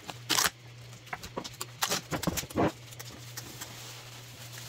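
Cardboard shipping box being opened by hand: its flaps scrape and thump in a string of short knocks and rustles, most of them in the first three seconds, then quieter handling.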